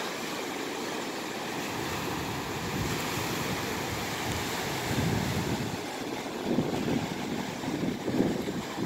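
Atlantic surf breaking over a rocky shoreline reef: a steady rush of waves, with a few louder surges in the second half.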